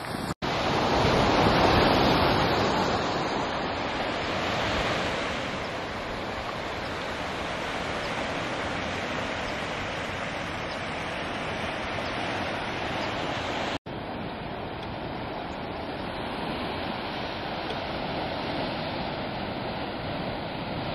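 Ocean surf washing onto a rocky, pebbly shore below the cliffs, a steady rush of water that swells loudest about two seconds in, with some wind on the microphone.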